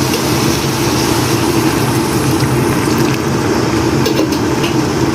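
Steady mechanical hum like a motor running, with a few faint light clicks.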